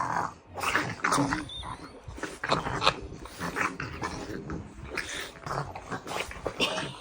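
French bulldogs play-wrestling, making a rapid, irregular run of short grunting and growling noises.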